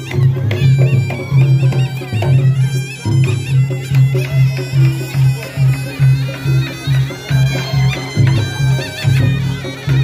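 Reog Ponorogo gamelan accompaniment: a slompret, the nasal double-reed shawm, plays a wavering, ornamented melody over a steady pulse of low drum and gong beats.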